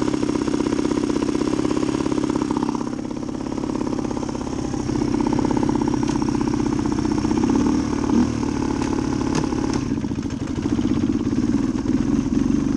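1990 Suzuki DR250's single-cylinder four-stroke engine idling steadily, dipping briefly about three seconds in. A few light metallic clicks come through near the middle.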